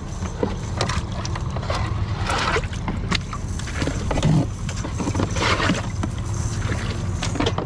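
Small fishing boat's motor running steadily with a low hum, with irregular knocks and clatters as fish and the cast net are handled in the boat.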